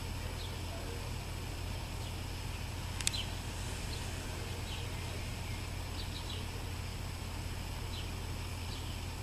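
Small birds giving brief, high, falling chirps every second or so over a steady low rumble, with one sharp click about three seconds in.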